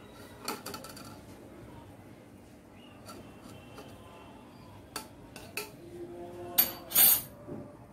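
Kitchen dishes and a metal spoon clinking: a few light clicks, then two louder clinks with a short ring near the end.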